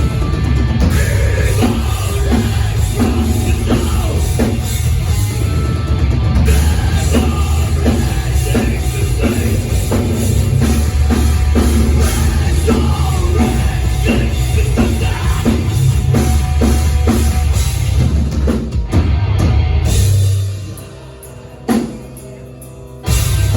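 Heavy metal band playing live at full volume: distorted guitars and bass over fast drumming. About twenty seconds in the band drops out for a couple of seconds, with one short hit in the gap, then crashes back in.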